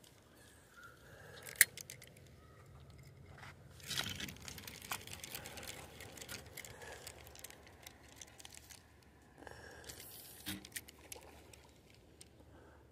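Scattered rustling and crunching, with a sharp click about one and a half seconds in and louder rustles around four seconds and again near ten seconds.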